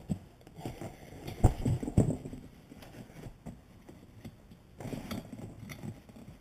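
Rear seat backrest being set back in place: two dull thumps about a second and a half and two seconds in, then light rustling and small clicks as the seat belt buckles are worked through the leather seat.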